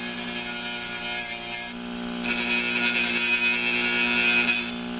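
The tip of a slightly blunt flat-blade screwdriver being sharpened on emery cloth glued to the spinning platter of an old Seagate Barracuda hard drive, a high grinding rasp in two passes with a short break about two seconds in. Under it the drive runs with a steady hum, from vibration because the emery cloth is not quite centred.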